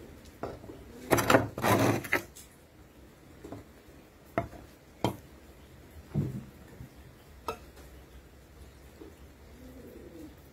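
Handling noise over a wooden tabletop: a loud rustling scrape about a second in, then a few light clicks and taps and one dull knock. Pigeons coo faintly near the end.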